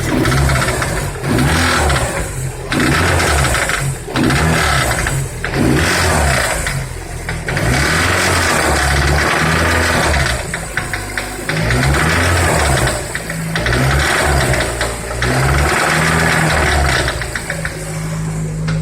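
Turbocharged VAZ-2112 engine revved up and let fall back again and again in short throttle blips, with a knock from the bottom end. The owner suspects a spun connecting-rod bearing on cylinder 4.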